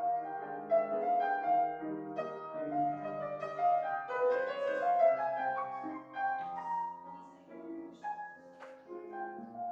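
Piano playing slow music with several notes held together as chords.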